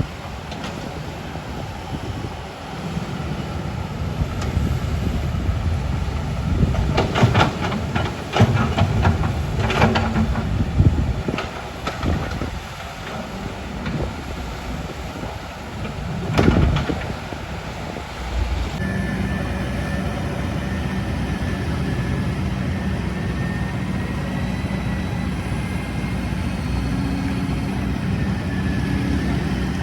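Kobelco hydraulic excavator's diesel engine running, with a string of sharp metal clanks and knocks in the middle. About two-thirds of the way through it changes abruptly to a steady engine drone with a thin whine.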